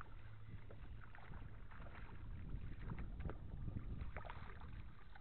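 Water splashing and lapping at the side of a small fishing boat as a hooked crappie is reeled in to it, with short sharp splashes scattered through and a low steady hum underneath.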